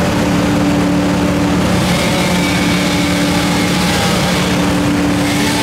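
An engine running steadily at a constant speed, with a loud, even drone throughout.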